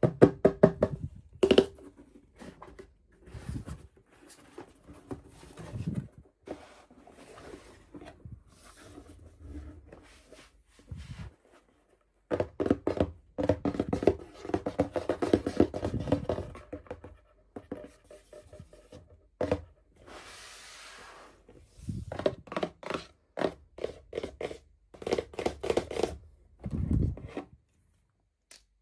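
Hands unboxing small plastic toy miniatures: irregular knocks, taps and handling noise, with a few longer stretches of rustling packaging.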